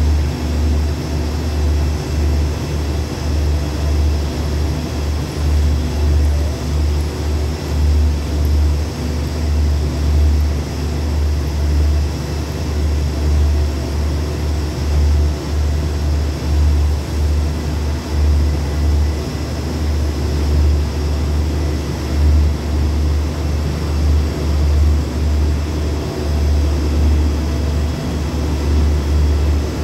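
Low, steady diesel rumble of a passenger train reversing slowly into a station platform, swelling and dipping every second or so.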